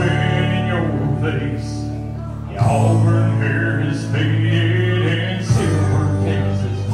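Man singing karaoke into a microphone over a backing track through a PA speaker, the bass line changing notes twice.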